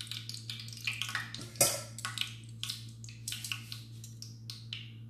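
Metal tongs clicking and scraping against a stainless steel strainer and bowl while fried eggplant slices are lifted out: a run of light clinks, with one sharper clack about a second and a half in.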